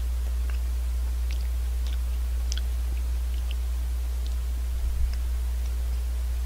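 Potato-snack chips being chewed close to the microphone, giving scattered crisp crunching clicks, most of them in the first three seconds or so. A steady low electrical hum runs underneath and is the loudest sound, with a small low bump about five seconds in.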